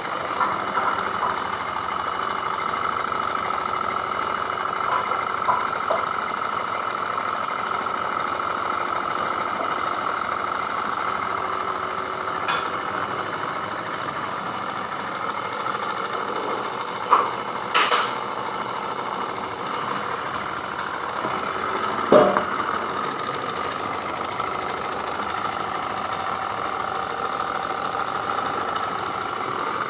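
Small glass-cylinder Stirling engine running fast on an alcohol burner flame, its flywheel and crank giving a steady whir. A few sharp clicks stand out about two-thirds of the way through.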